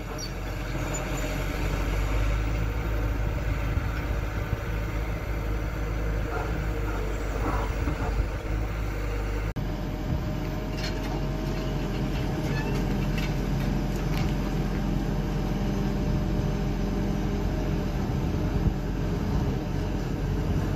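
Diesel engines of hydraulic crawler excavators running steadily. The sound changes abruptly about halfway through, and after that a faint steady whine and a few sharp clicks sit above the engine.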